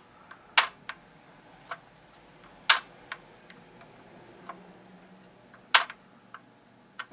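Small sharp clicks of a 1:18 scale die-cast KITT model car being handled, its opening doors being worked: three louder clicks about two to three seconds apart, with fainter ticks between.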